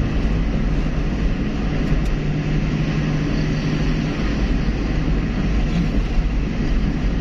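Steady engine drone and road rumble heard from inside the cabin of a 1986 Honda Civic Wonder driving at steady speed.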